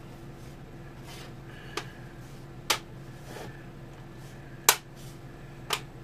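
Plastic clips of a Lenovo IdeaPad Flex 5 laptop's bottom cover snapping into place as the cover is pressed back on: four sharp clicks, the loudest about three-quarters of the way through. A steady low hum runs underneath.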